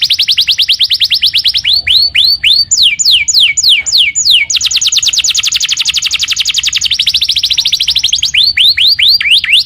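A songbird singing loud and close, in phrases of rapid trills and runs of down-slurred whistled notes, about three a second.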